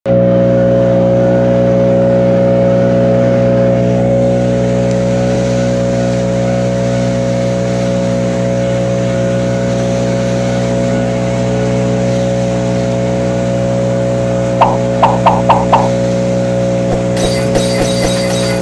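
Handheld leaf blower running steadily at full speed, a loud, even drone with a strong whine. About fifteen seconds in comes a quick run of five short, sharp clicks.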